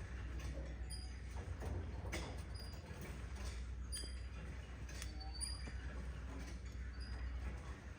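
Small pet parrots chirping softly: short, scattered high chirps and little ticks, over a steady low hum.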